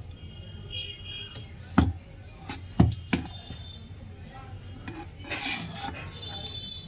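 Laptop motherboard knocking and clattering against a workbench as it is turned over and set down, with two sharp knocks about two and three seconds in and a smaller one just after, over a low steady hum.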